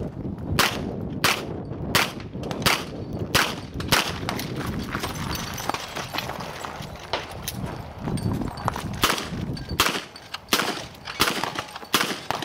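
Smith & Wesson Model 627 V-Comp revolver fired shot after shot, about two-thirds of a second apart, the shots thinning out for a few seconds in the middle before another quick string near the end.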